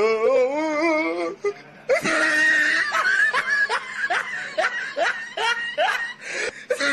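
Loud laughter: a wavering, warbling voice for the first second or so, then a steady run of short ha-ha sounds, about three a second.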